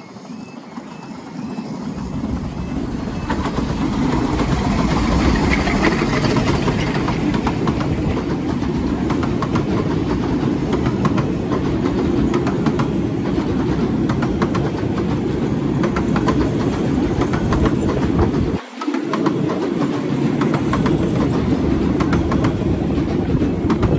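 A 15-inch-gauge miniature railway train approaches and runs past close by. It grows louder over the first few seconds, then holds a steady rumble with the rapid clickety-clack of coach wheels over the rail joints, dipping briefly near the end.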